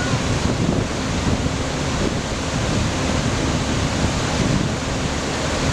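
Floodwater rushing in a steady, loud roar of water noise, with a faint steady low hum underneath.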